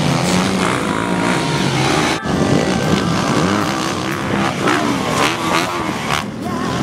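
Motocross motorcycle engines revving, their pitch rising and falling, with an abrupt cut about two seconds in.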